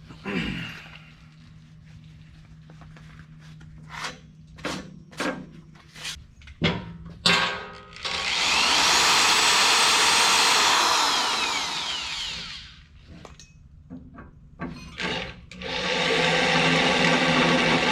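A power drill boring bolt holes in metal runs steadily for about four seconds around the middle, then winds down. It starts again a couple of seconds before the end. Sharp metal knocks and clanks come before each run.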